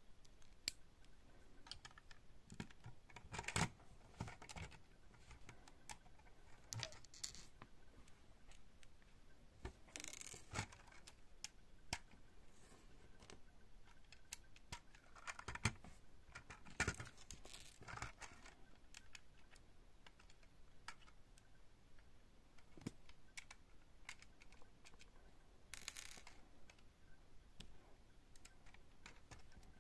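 Faint clicks and short rustling scrapes of LEGO bricks being handled and pressed together, scattered and irregular.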